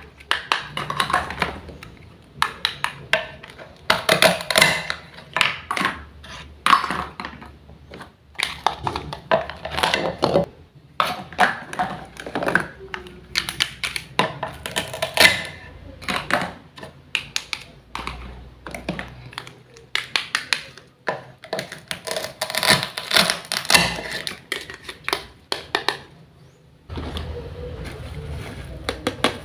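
Irregular run of clicks, taps and knocks, as of small hard objects being handled and set down, with a steadier rustling noise in about the last two seconds.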